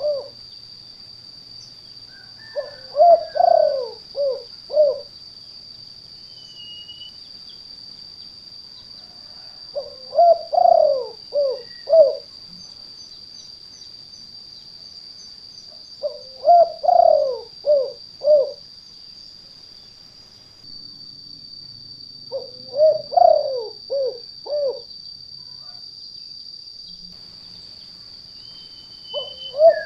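Spotted dove (tekukur) cooing: four phrases of several low coos each, repeated about every six to seven seconds, with another phrase starting at the very end.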